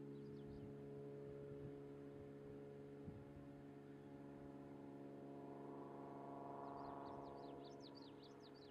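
Faint ambience: a steady low hum made of several tones, swelling a little and fading again about two-thirds of the way through. A small songbird sings quick runs of high, falling notes briefly at the start and again near the end.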